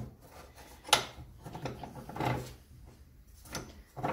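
Clicks and scrapes from a metal chop saw's base as its angle-lock lever is handled and the clamping fence is swivelled, with one sharp click about a second in followed by softer rubbing and knocks.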